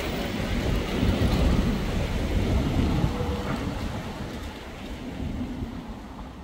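Street traffic rumbling, with trolleybuses, cars and motor scooters going by, which fades out steadily over the last few seconds.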